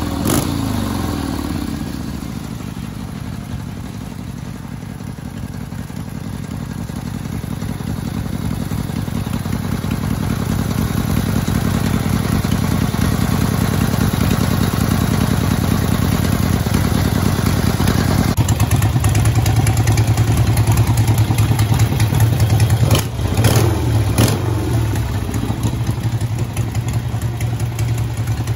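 1979 Harley-Davidson Ironhead Sportster's V-twin idling through straight-through cocktail-shaker mufflers, its revs dropping to idle within the first second. About 18 seconds in, the sound switches abruptly to the same bike on its earlier exhaust pipes, idling louder and deeper, with two quick throttle blips a few seconds later.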